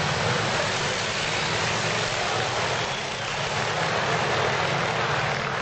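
Antique motorcycle engines running steadily.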